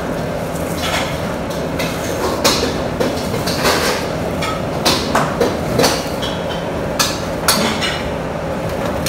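Crisp fried pastry pieces being crushed into crumbs by gloved hands on a plate: irregular crunches and sharp crackles, about one a second, over a steady background noise.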